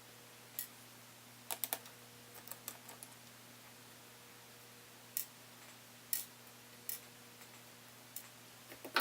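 Irregular small clicks and taps, a quick cluster about one and a half seconds in and a sharper one at the very end: small tools and parts being handled on an opened laptop. A faint steady electrical hum lies underneath.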